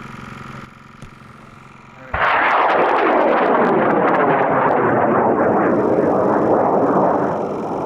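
High-power rocket motor lighting about two seconds in: a sudden loud roar with crackle that holds steady for about five seconds, then fades.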